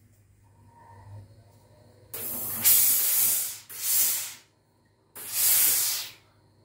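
Laurastar steam-generator iron releasing steam in three hissing bursts: a long one about two seconds in, a short one right after it, and another about five seconds in.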